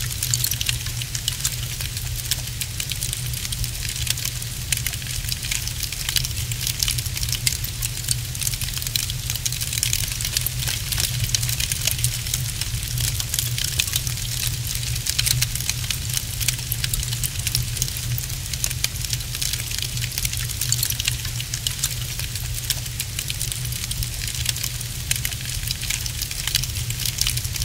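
Wood fire burning in an open fireplace, crackling with a dense, constant stream of small pops and snaps over a low, steady rumble.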